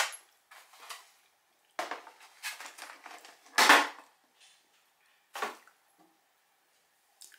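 A plastic spoon scraping and clinking in a dish of cake, several short scrapes with gaps between them, the loudest about halfway through.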